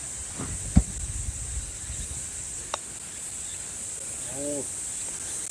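A steady high-pitched chorus of summer insects drones throughout. There is a soft low thump about a second in and a single sharp click near the middle.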